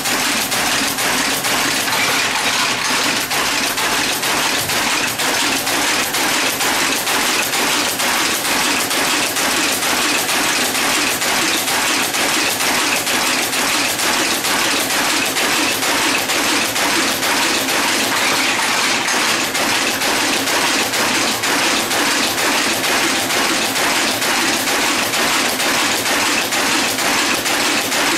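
Type-casting machine running, casting type from molten type metal: a steady, even mechanical clatter of rapid metallic clicks with no pauses.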